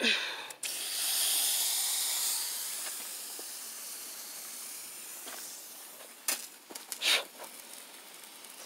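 Water hissing as it sprays from a garden irrigation hose line. The hiss swells about a second in and fades slowly. A short falling squeak comes at the very start, and a couple of sharp clicks come near the end.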